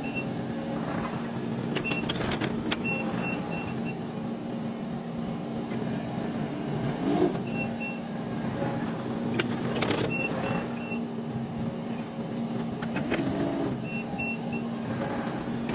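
Construction machine's engine running steadily, with a few short runs of high beeps every few seconds.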